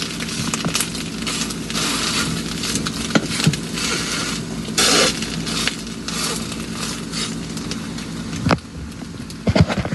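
Egg omelet sizzling in a hot frying pan, with scattered clicks. The sizzle surges briefly about halfway through and falls away suddenly near the end, followed by a few sharp knocks.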